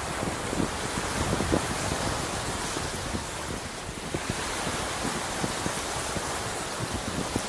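Ocean waves washing onto a beach: a steady rush of surf that swells and eases. Wind buffets the microphone with many short low thuds.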